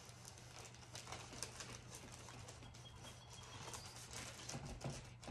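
Faint rustling of thin decoupage paper as hands smooth it down over a wooden board, with birds calling faintly from outside and a brief thin high note about three seconds in.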